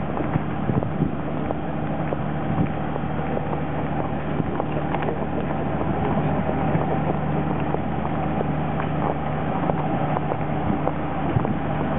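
Steady drone of engines running on an airport apron, with a constant low hum and a few faint knocks.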